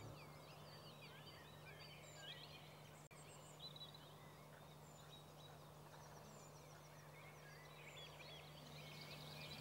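Faint woodland birdsong: many small birds chirping and warbling at once, busier near the start and again near the end, over a faint steady low hum.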